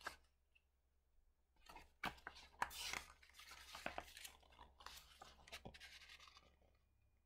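Paper pages of a picture book rustling and flapping as they are turned and spread open, with many small sharp crinkles. The rustling starts about two seconds in and fades out after about six seconds.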